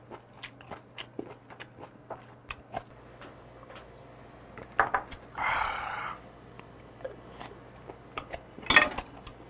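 A person chewing food close to the microphone, with many small clicks of the mouth and food. About five seconds in, just after a shot of soju, comes a short breathy exhale, and just before the end a few louder clicks of a spoon or chopsticks against a dish.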